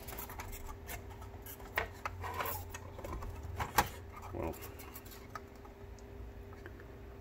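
Hands handling a plastic instrument cluster and its small parts: scattered light clicks and rubbing, with one sharp click a little under four seconds in, over a faint steady hum.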